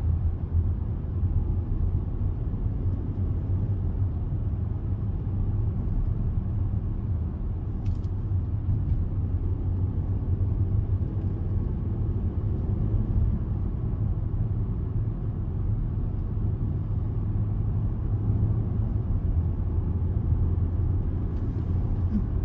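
Steady low rumble of road and engine noise inside a moving car's cabin, cruising at an even speed.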